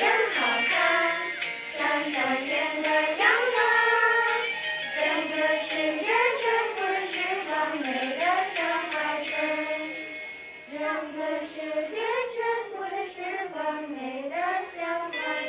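Children singing a song together over instrumental backing with a steady beat. The song briefly drops off about ten seconds in.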